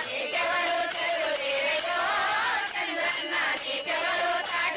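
A group of women singing a Telugu bhajan-style praise song together in unison, the tune winding up and down.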